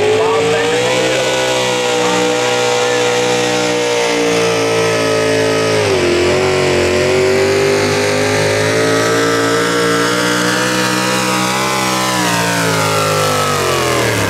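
V8 hot rod pulling tractor engine running hard under load during a pull. The revs climb at the start, sag briefly about six seconds in and pick back up, then fall away near the end as the throttle comes off.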